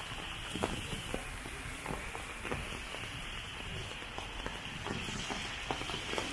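Steady heavy rain falling on the street and pavement, with scattered sharp drips and splashes close by.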